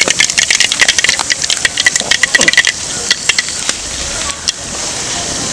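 Mustard seeds popping and crackling in hot coconut oil in a metal pan during tempering. The popping is rapid and dense for the first half, then thins out to a steady sizzle with a few scattered pops.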